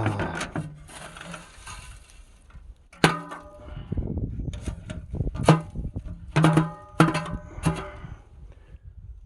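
Sheet-metal wood-stove flue pipe clanking: about five sharp knocks, each ringing on briefly, with scraping and rattling between them as the sooted pipe sections are handled.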